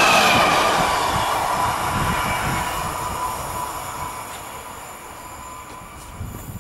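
The tail of an intermodal freight train of pocket wagons carrying lorry trailers rolls away. Its wheel-and-rail noise fades steadily, and a thin steady whine lingers as it dies out.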